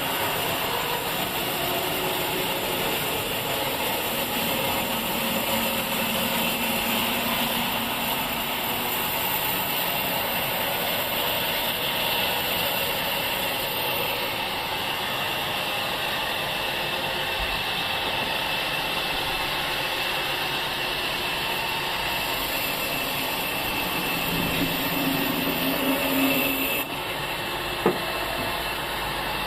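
Sawmill machinery running steadily, with one sharp knock near the end.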